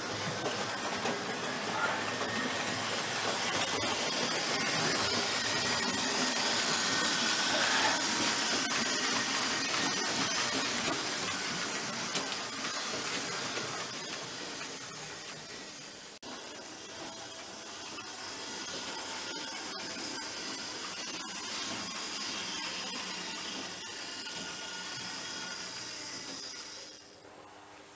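Märklin HO model train running on metal track: a steady rattling hiss that swells as it passes close, then slowly fades, dropping away near the end.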